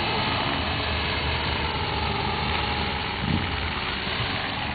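50-size electric RC helicopter's main rotor and electric motor running steadily in a low hover, a constant drone.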